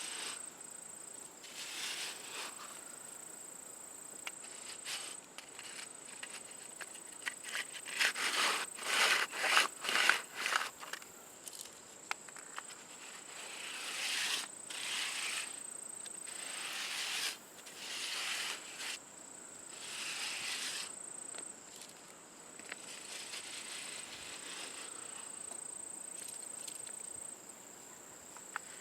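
Scraping strokes of a tool working wet concrete, a quick run of strokes about eight seconds in and a few single ones later, over a steady high insect trill.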